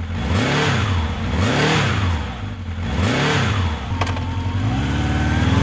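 Engine revved three times, each rev rising and falling in pitch, then a sharp click about four seconds in and the engine holding a steady speed.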